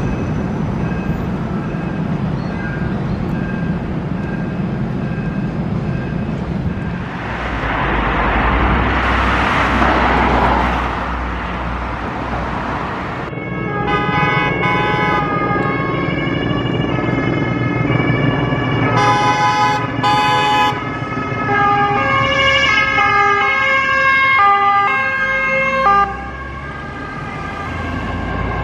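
Emergency vehicle sirens. First a faint siren over traffic, with a loud rush of passing traffic about eight seconds in. Then from about halfway through, several fire brigade vehicles' sirens overlap loudly, each stepping between two pitches, and they cut off suddenly near the end.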